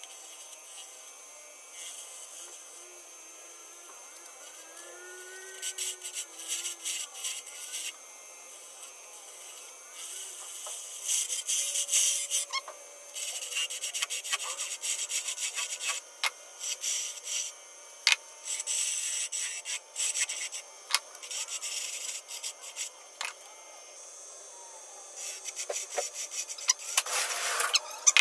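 Hand-held turning tool cutting a spinning maple and purpleheart ornament on a wood lathe. The scraping hiss of the cut comes in short passes with brief pauses and grows heavier and more continuous about a third of the way in.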